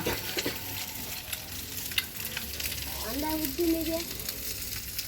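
Fish sizzling in hot oil on a tawa (flat iron griddle), a steady frying hiss with a few sharp clicks scattered through it.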